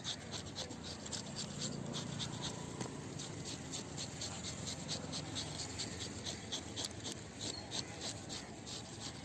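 A hand-held fish scaler scraping the scales off a spotted scat, in quick repeated rasping strokes, several a second.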